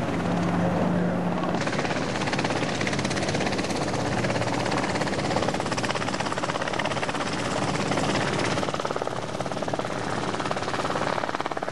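Bailey Moyes Dragonfly ultralight tug's engine running steadily with a fast, even firing rhythm. It gets louder and brighter about a second and a half in.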